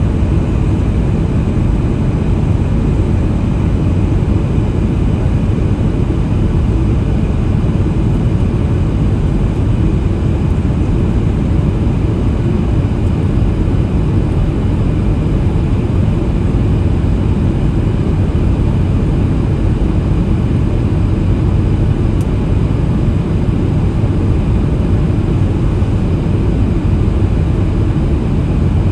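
Steady low cabin roar inside a Boeing 737 MAX 8 on approach, from its CFM LEAP-1B turbofans and the airflow over the fuselage, heard from a window seat beside the wing.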